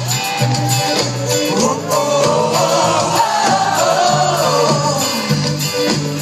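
Live band music with singing: drums, bass and a sung melody line.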